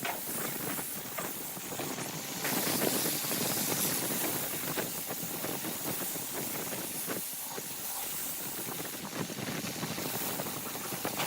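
Wood spinning on a lathe against a turning tool: a continuous scraping hiss with many small crackles, a little louder a few seconds in.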